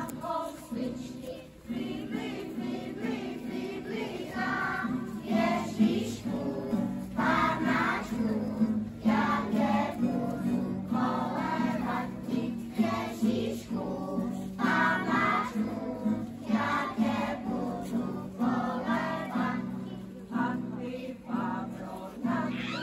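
A group of young children singing an Advent song together, phrase by phrase, over a steady sustained instrumental accompaniment.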